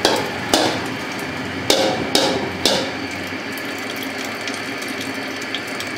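A perforated steel strainer clanking against the rim of a large aluminium pot as partly cooked rice is scooped out of the boiling water, about five sharp metallic knocks in the first three seconds. A steady hiss runs underneath throughout.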